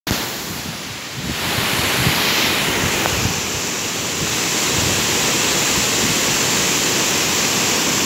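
Waterfall and water spilling over small concrete weirs below it: a steady rushing of falling water, growing louder after about a second and a half.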